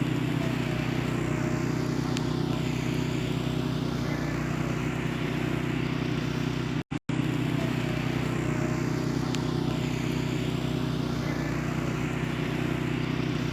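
A motor running with a steady low hum, cutting out twice for an instant about seven seconds in.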